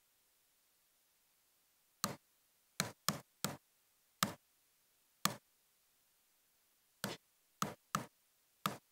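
Laptop keys being tapped: about ten short, sharp clicks, unevenly spaced, starting about two seconds in, with near silence between them.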